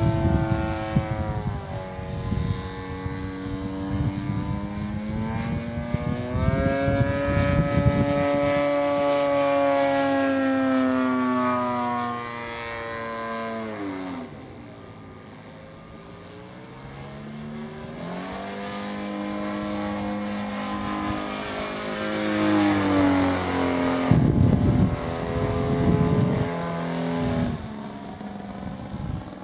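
Zenoah G38 38cc two-stroke petrol engine of a giant-scale RC airplane turning a 20x8 propeller in flight: a steady buzzing drone whose pitch and loudness swell and sag, dropping away markedly about halfway through and climbing again later. Wind buffets the microphone in low rumbling gusts a few times.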